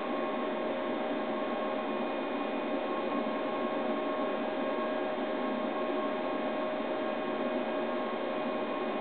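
Steady machine hum with hiss and a couple of constant tones, unchanging throughout.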